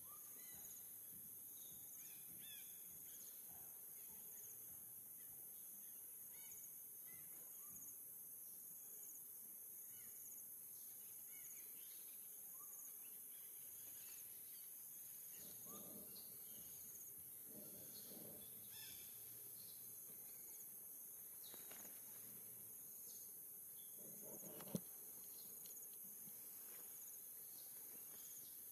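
Near silence with faint, steady, high-pitched insect chirping, a few faint low noises, and one sharp click about 25 seconds in.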